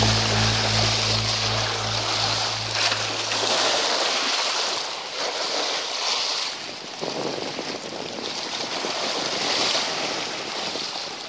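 Small sea waves washing and foaming over the boulders of a rock seawall, the rush swelling and easing, with some wind on the microphone. The tail of a music sting fades out over the first few seconds.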